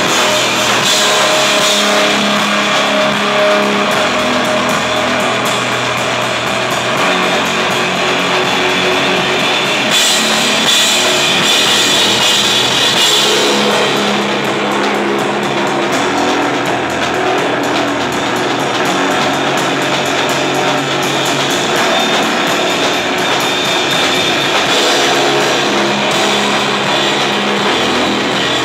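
Live rock band playing loud, with a drum kit and electric guitar, continuous and dense, turning brighter for a few seconds about ten seconds in.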